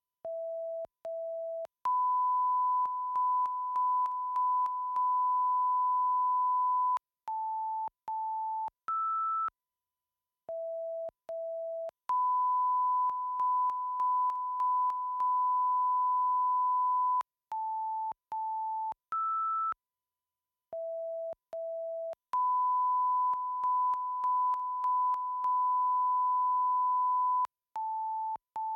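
BLITS 5.1 surround line-up tones: a repeating cycle of short channel-identification beeps at different pitches, two lower, then two higher and one higher still, each picking out a speaker channel in turn, followed by a steady tone about five seconds long broken by four brief dips. The cycle repeats about every ten seconds.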